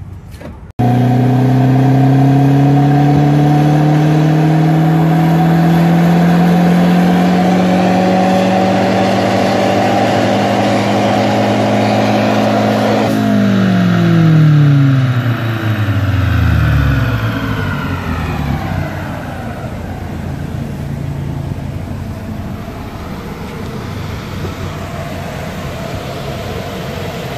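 Mazdaspeed 3's turbocharged 2.3-litre four-cylinder making a dyno pull: the engine climbs steadily in revs under full load for about twelve seconds, then lets off. The revs fall away quickly as the rollers coast down, and it settles to a lower steady running sound.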